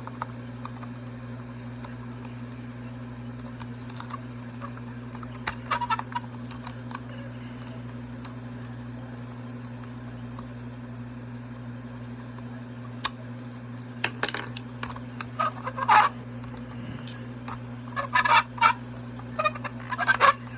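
Scattered plastic clicks and rattles from the gears of a Gemmy Snoring Santa's gearbox being handled and pushed onto their shafts, over a steady low hum. The clicks come in short clusters, busiest in the second half.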